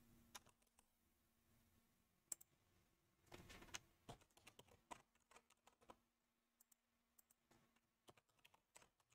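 Faint computer keyboard keystrokes: scattered single key clicks, with a short run of typing about three and a half seconds in.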